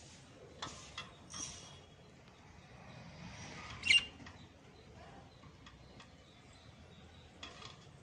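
Parrot chicks giving short, squeaky chirps from a nest box: a few in the first second and a half, the loudest about four seconds in, and another near the end.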